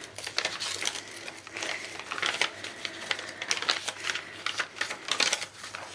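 Paper pages of a handmade junk journal being turned and handled: a run of quick, irregular rustles and small crisp ticks.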